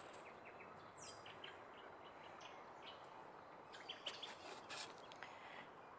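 Faint birdsong: scattered short high chirps and one quick falling call about a second in, over quiet outdoor hiss.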